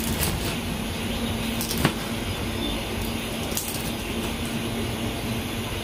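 Large kitchen knife cutting through roasted pork ribs on a plastic cutting board, with a few sharp knocks as the blade strikes the board, the loudest about two seconds in. A steady low hum runs underneath.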